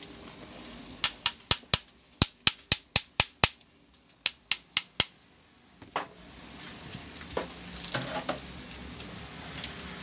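A quick series of sharp knocks, about four a second: ten, a short pause, then four more. They come from tapping on the stuck motor of an 18-inch box fan to knock it loose from its mount. Quieter handling noise follows.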